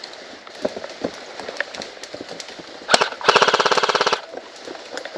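Airsoft electric gun (AEG) firing one short full-auto burst of about a second, a fast even rattle of the motor and gearbox cycling, with a single sharp crack just before it.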